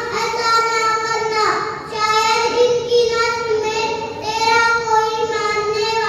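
A young girl's voice reciting in a chanted, sing-song style, holding long steady notes, with short breaks between phrases about two and four seconds in.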